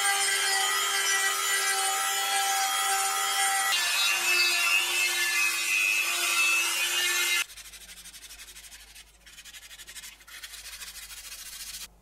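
Handheld rotary tool running at a high steady whine while its small sanding bit grinds into wood, the pitch dipping slightly about four seconds in. It cuts off abruptly about seven and a half seconds in, leaving only faint, uneven quieter noise.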